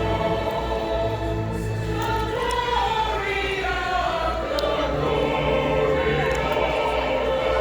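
A choir singing a Christmas song in several parts with held notes, over a steady low accompaniment.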